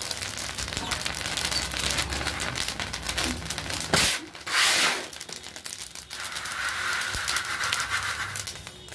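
Black chickpeas being stirred and tossed through hot sand in a large kadhai, a dense dry crackling and rustling of grains and sand, with a louder rush about four seconds in.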